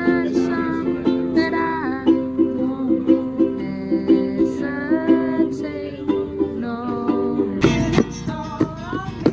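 A ukulele strummed in chords, with a man singing along. About seven and a half seconds in it cuts suddenly to an acoustic guitar strummed with singing.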